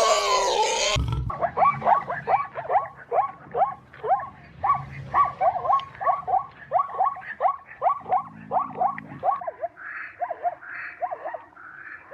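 Animal calls: a loud pitched call that ends about a second in, then a rapid series of short calls, about two to three a second, each falling in pitch, growing sparser near the end.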